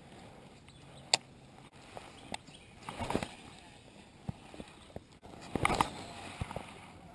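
Scattered clicks and knocks of a baitcasting rod and reel being handled in a kayak, the loudest a single sharp click about a second in. A short rushing burst near six seconds in comes as the rod is swung to cast.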